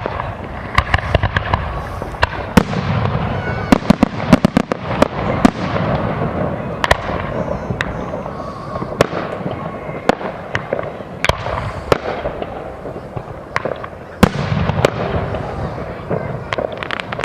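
Fireworks display: a rapid string of sharp bangs and crackles from bursting shells, thickest a few seconds in and again near the end.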